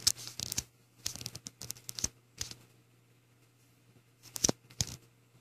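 Scattered light clicks and taps of a hard drive and its unscrewed controller circuit board being handled on a tabletop, in small clusters, the sharpest about four and a half seconds in, over a faint steady hum.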